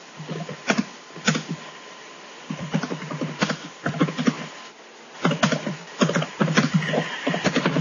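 Quick, irregular clicks and taps coming in bursts of several at a time, over a faint steady tone.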